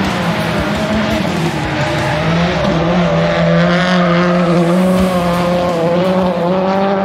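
Rally car's engine running hard at a fairly steady, high pitch as the car slides through a loose-surfaced bend on a rallycross track.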